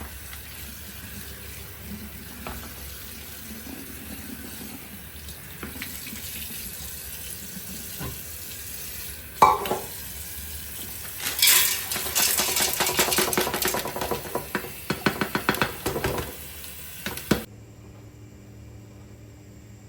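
Kitchen sounds: water running into a sink with dishes and utensils clattering, busiest in the second half, with one sharp knock about halfway through. It stops abruptly near the end.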